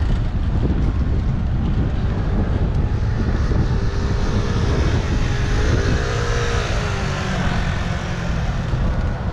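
Wind rumbling on a helmet-mounted camera's microphone while riding a bike at speed. From about three to seven seconds in, a passing motor scooter's engine rises and falls in pitch over the rumble.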